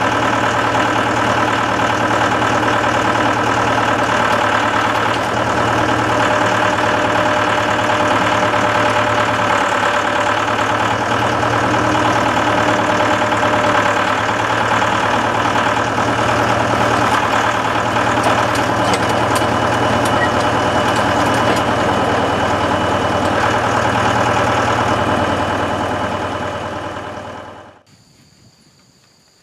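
Tractor engine running steadily under load, driving a PTO post hole auger that bores into clay soil. The sound fades out near the end.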